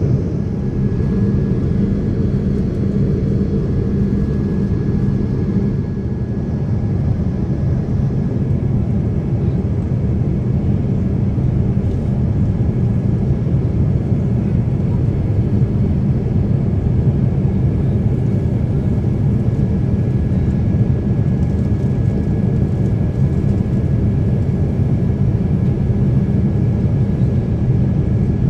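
Steady roar of a jet airliner in cruise heard inside the passenger cabin: engine and airflow noise, deep and unchanging, with a faint steady whine above it.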